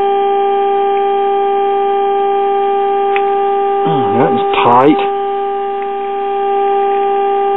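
Steady test tone from a tube radio's loudspeaker: the signal generator's modulated 455 kc signal coming through the 1946 Kitchenaire's IF stages while an IF transformer adjustment is tweaked for the strongest output. The tone sags a little near the end and then comes back. About four seconds in there is a short warbling sound.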